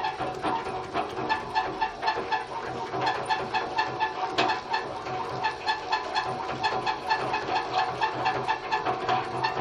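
Sewing machine running and driving a small motor as a generator: an even, squeaky chirping about three times a second over a steady whine.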